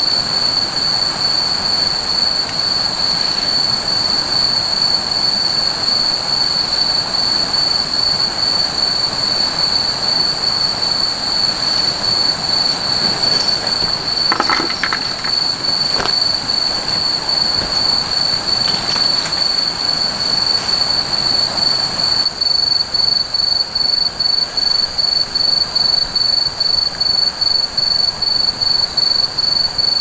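Night insects trilling in a steady high-pitched chorus, which turns into a fast pulsing trill about two-thirds through. A few faint clicks and knocks come around the middle.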